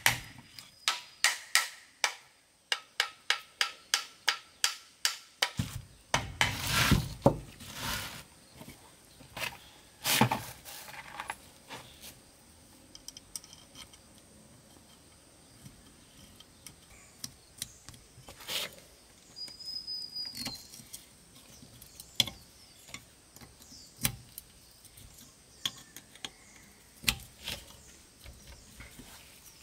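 Rapid hammer blows, about three or four a second, for the first five seconds or so. Then come a few heavier irregular knocks and the clatter of tools or parts being handled, with quiet stretches in between.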